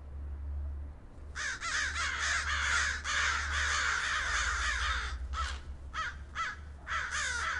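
A flock of birds calling at once: a dense, harsh chorus of many short overlapping calls that breaks up into separate bursts about five seconds in.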